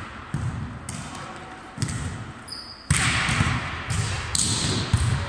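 A volleyball struck again and again in forearm-pass drills, about five sharp hits, each echoing through a large sports hall.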